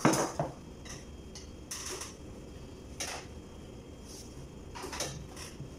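Scattered clinks and knocks of metal plates, pots and serving utensils as food is dished out, about half a dozen short strikes, over a steady low hum.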